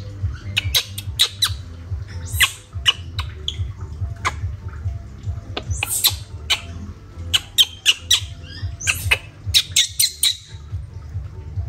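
Baby monkey squealing in many short, high-pitched shrieks in quick succession while it is rubbed dry in a towel.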